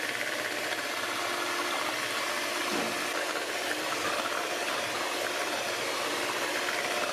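Electric hand mixer running steadily, its twin beaters whisking cake batter in a plastic bowl.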